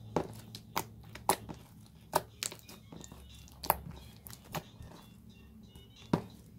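Water-logged slime squished and stretched by hand, giving about eight sharp wet pops and clicks spread irregularly. The slime has soaked in far too much water and gone slippery and rippy.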